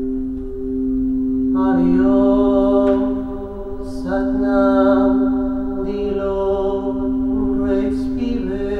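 Crystal singing bowls ringing with two steady held tones, over which a voice sings a slow chant in long held notes from about one and a half seconds in, breaking briefly near four and eight seconds.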